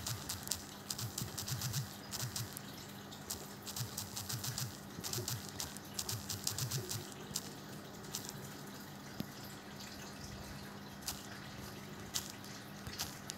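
Fingertip taps on a smartphone touchscreen while typing on the on-screen keyboard: quick irregular runs of light clicks that thin out after about eight seconds, over a steady low hum.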